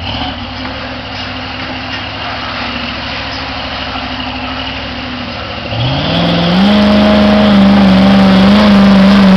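Lifted Chevy mud truck's engine running at low throttle as it churns through deep mud. About six seconds in it is revved hard, the pitch climbing quickly and then held high and loud under load.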